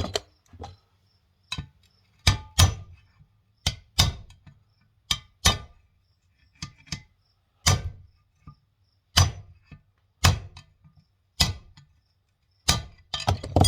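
Hammer blows on a steel drift, about one a second and some in quick pairs, with a faint metallic ring, driving a stuck ring out of a Mahindra 5010 tractor's front final drive housing.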